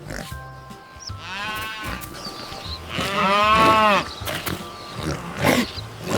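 Two drawn-out, wavering animal calls, the second longer and louder, over light background music.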